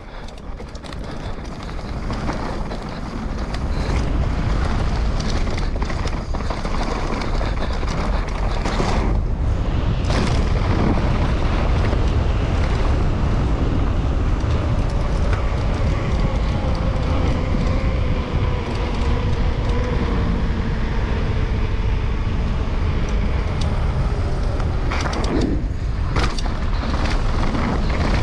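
Downhill mountain bike ridden fast on a race course: wind rushing over the camera's microphone together with tyre and trail rumble, building over the first few seconds as the bike gathers speed. Through the middle a faint hum slowly falls in pitch while the knobby tyres run on a paved stretch.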